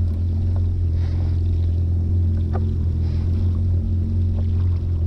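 Jet ski engine idling with a steady low hum, with water washing against the hull.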